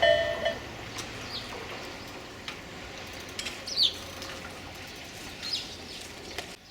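A level-crossing warning bell's repeating electronic ding stops about half a second in. A few short, high, descending bird chirps follow over quiet background noise.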